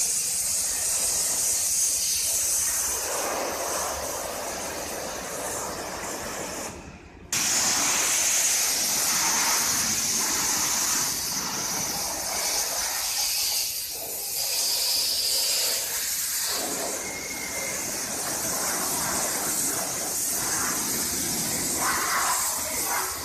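High-pressure water jet from a Kärcher HD 6/15-4 Classic pressure washer lance hissing steadily as it sprays a car's body. The spray briefly drops away about seven seconds in, then comes back suddenly.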